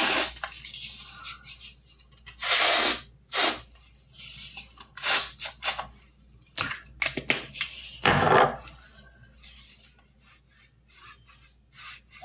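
Spray can hissing in about half a dozen short bursts, some up to a second long, over the first eight seconds. Fainter small clicks and handling rustles follow near the end.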